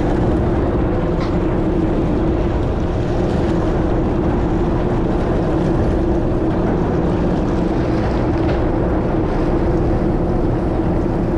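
Party boat's engines running steadily: a constant drone with one held hum, even in level throughout.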